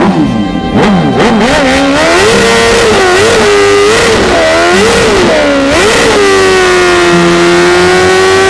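Motorcycle engine revved in quick blips, then held steady at high revs during a burnout, with the rear tyre spinning on the asphalt.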